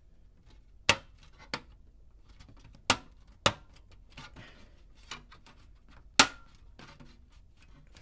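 A stamped-metal motherboard I/O shield being pressed into a PC case's rear opening: about six sharp metallic clicks and snaps as its edges and corners seat. The loudest snap comes about two-thirds of the way through, with a brief ring after it.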